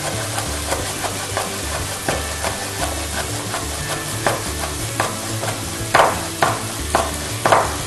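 Chopped onions sizzling in oil in a frying pan, with a chef's knife cutting a red pepper into thin rings on a wooden cutting board; the knife strokes grow sharper and more distinct from about halfway through.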